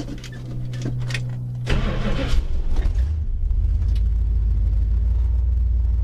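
Cold start of a 1964 Dodge Custom 880's V8: about two seconds in the starter cranks and the engine catches, then it settles into a steady idle.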